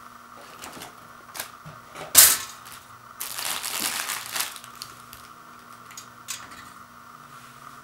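Foil toaster-pastry pouch crinkling as it is handled: a sharp crackle about two seconds in, then a longer rustle lasting about a second and a half, with a few light clicks and taps around it.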